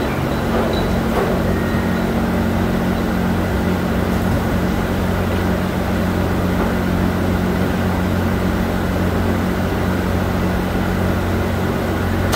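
Steady hum of running factory machinery, a constant low electrical drone with a noisy mechanical haze over it and no distinct knocks or starts.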